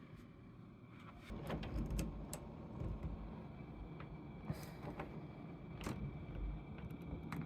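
Quiet footsteps with soft low thumps and scattered sharp clicks and knocks.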